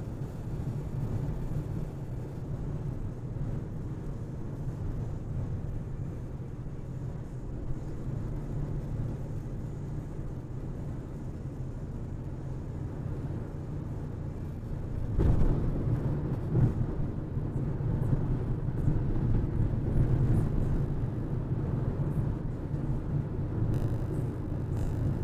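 Car driving on a highway, heard from inside the cabin: a steady low rumble of engine and tyres. About fifteen seconds in there is a knock, and the rumble gets louder from then on.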